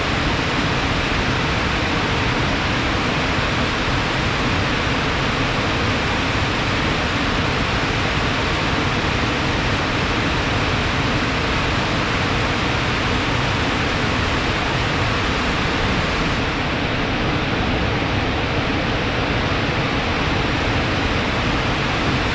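Rain-swollen water flowing fast, a steady, dense rushing.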